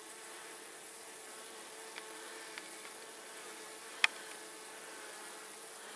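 Honeybees buzzing in a steady hum as they crowd together at the hive entrance. A couple of faint clicks, and one sharp click about four seconds in.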